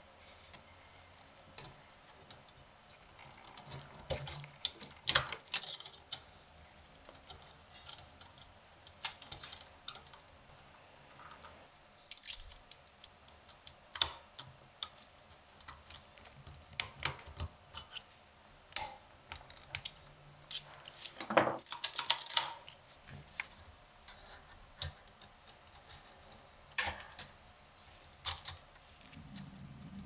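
Small steel parts of a 1930s Remington-built portable typewriter's mechanism clicking and tapping as they are fitted by hand and worked with a screwdriver. Irregular, sparse clicks, with the loudest cluster a little past the middle.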